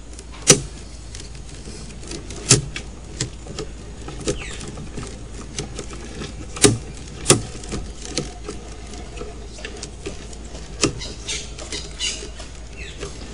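Scattered sharp clicks and knocks over a steady low hum as a drain inspection camera's push rod is fed up the sewer pipe. About five louder knocks stand out among smaller ticks, the loudest about half a second in.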